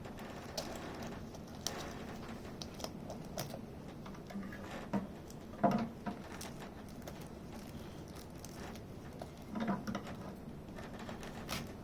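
Packaging being opened by hand: scattered crinkles, rustles and small clicks of cellophane wrap and box, with louder handling bursts about halfway through and again near the end.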